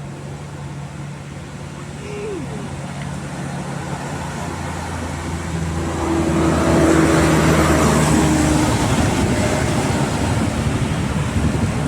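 Diesel bus engine running under load on an uphill climb as the bus passes, a steady drone that swells to its loudest about six to nine seconds in and then eases off slightly.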